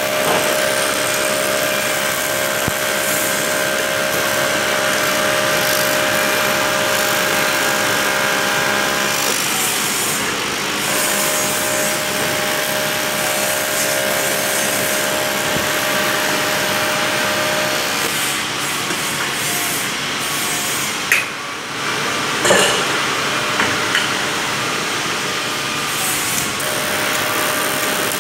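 TIG welding arc running steadily with a hissing buzz, and a steady whine in it that drops out twice and comes back; a few sharp clicks about three quarters of the way through.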